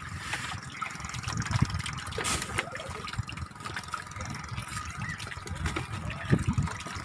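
Wind buffeting the microphone in uneven gusts, with water splashing and lapping.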